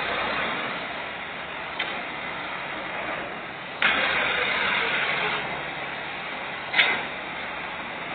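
Tractor diesel engine running steadily as its front blade pushes a pile of soil. Sharp knocks come about two, four and seven seconds in; the one near four seconds is followed by a rush of louder noise for about a second and a half.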